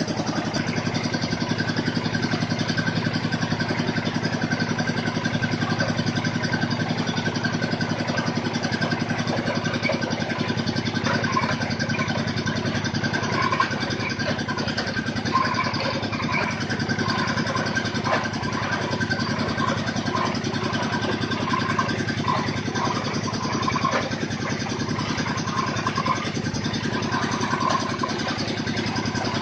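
Engine of a water-well drilling machine running steadily at a constant speed.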